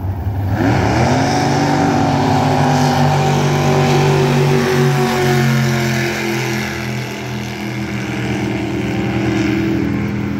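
Racing jet boat engine revving up sharply about half a second in, then running at high, steady revs.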